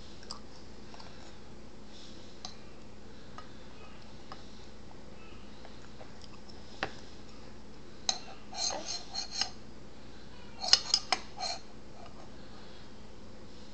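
A toddler's spoon clinking against a bowl as she feeds herself: a few light taps, then two quick runs of clinks about eight and eleven seconds in.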